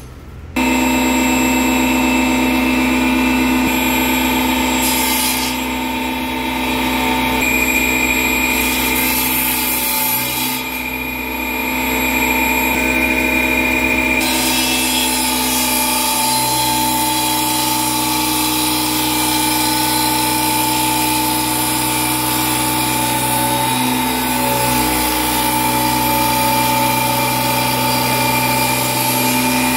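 An electric power tool running steadily while working wood, starting abruptly about half a second in.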